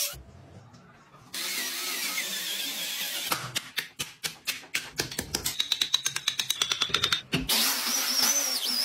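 A chisel driven into a wooden block in a run of sharp taps that speeds up to about eight a second. Before and after it there is a steady hiss with a faint wavering high tone.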